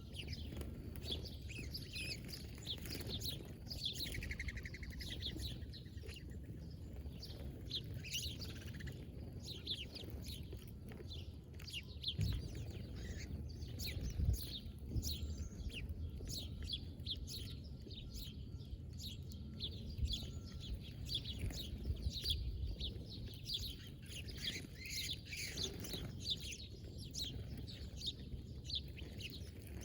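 Many small birds chirping in quick, overlapping calls, with a buzzy falling trill about four seconds in, over a low steady rumble.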